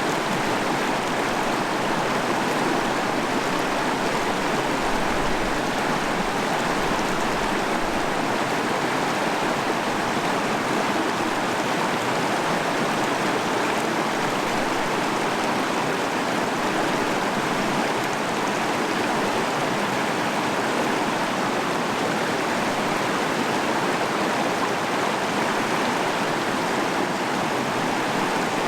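Stream water running over rocks, a steady, even rushing.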